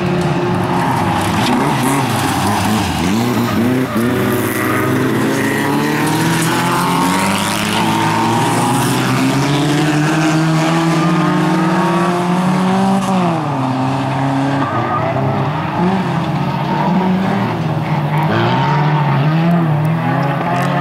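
Several bilcross race cars' engines revving hard, their notes overlapping and rising and falling as the cars accelerate, lift and change gear, with one clear drop in pitch about two-thirds of the way through.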